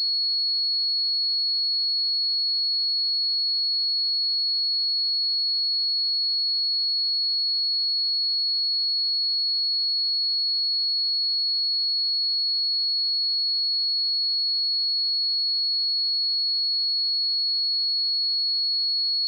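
A steady 4352 Hz sine-wave test tone: one pure high-pitched note held at constant pitch and level.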